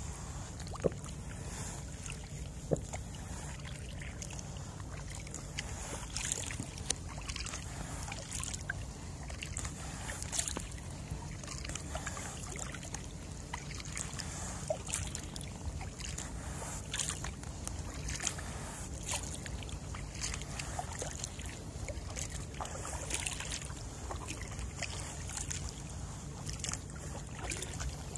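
Kayak paddle strokes dipping and splashing in calm water, with dripping from the blades. The strokes are irregular, there are a few sharper knocks near the start, and a steady low rumble runs underneath.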